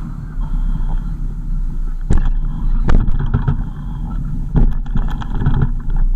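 Car driving: a steady low rumble of engine and road noise, with sharp knocks and rattles about two and three seconds in and a cluster more near the end.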